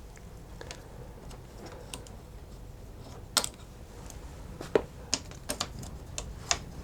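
Scattered light metallic clicks and taps of hand tools and parts being handled while the clutch cable is unhooked, with a few sharper clicks in the second half.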